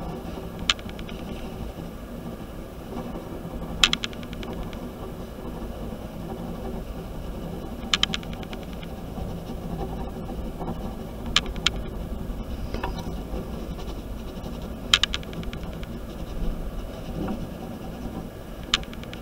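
A steady low machine hum, with a sharp, briefly ringing click every three to four seconds.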